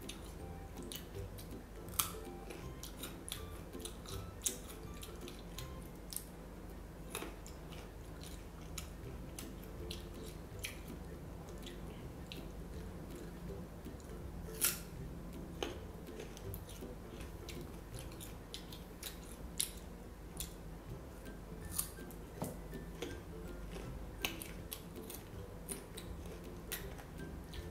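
Crisp green ambarella being bitten and chewed: sharp crunches scattered irregularly through the chewing, the loudest about two seconds in and halfway through. Soft background music runs underneath.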